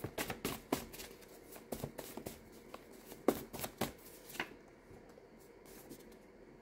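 Tarot cards being handled: a run of soft, irregular flicks and taps that dies away after about four and a half seconds.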